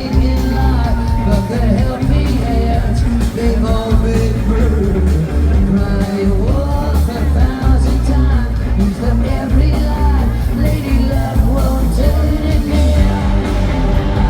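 Live rock band playing a song, with a heavy bass and drum low end and a melodic line gliding over it.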